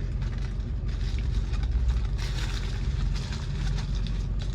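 Paper sandwich wrapper crinkling and rustling as the sandwich is unwrapped, strongest from about a second in until near the end, over a steady low hum like a car's idling engine heard from inside the cabin.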